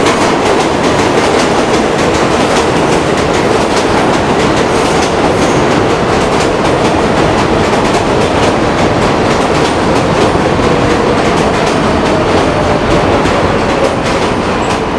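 A New York subway train running on elevated steel track: a loud, steady rumble of wheels on rail with clickety-clack and a faint whine that slowly falls in pitch.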